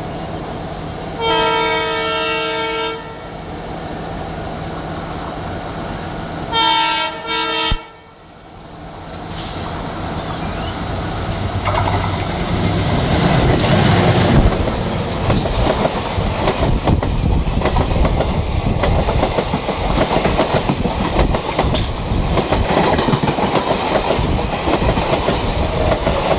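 A diesel locomotive horn sounds: a long blast about a second in, then two short blasts around seven seconds. An oncoming WDP-4 diesel locomotive then passes close on the next track, its engine loudest around fourteen seconds. The rapid, steady clickety-clack of its coaches' wheels over the rail joints follows as they pass.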